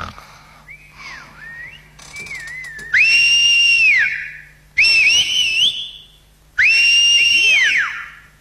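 Men whistling shrilly with two fingers in their mouths: a few softer wavering whistles, then three loud, long blasts, each swooping up, held, and dropping away at the end, the last with two whistlers overlapping.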